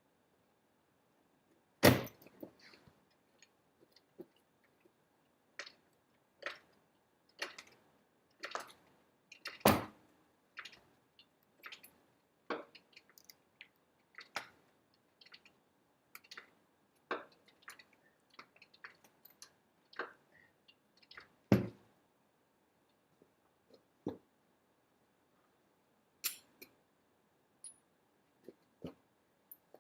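Irregular knocks, clicks and clinks of tools and wheel parts being handled during a wheel change, with louder thumps about two, ten and twenty-two seconds in.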